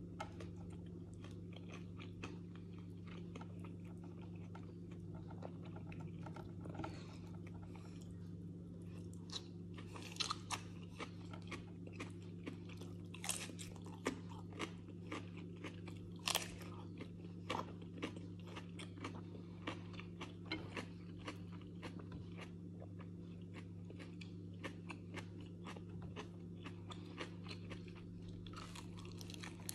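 Close-up eating sounds: a crisp fried flatbread being bitten and crunched, with chewing between scattered sharp crunches, loudest around the middle. A steady low hum runs underneath.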